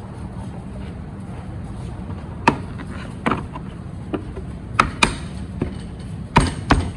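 Hard plastic clicks and knocks as a rear reflector and chrome trim are worked into place on a painted bumper cover: about eight sharp, separate taps in the second half, over a steady low hum.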